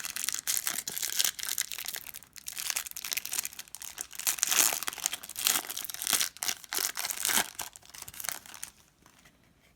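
Cellophane wrapper of a trading-card cello pack crinkling and tearing as it is opened and handled, an irregular crackle that stops near the end.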